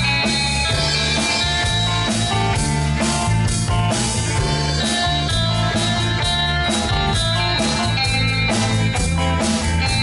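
Live instrumental rock band playing: several electric guitars over bass guitar and a drum kit, with a steady beat.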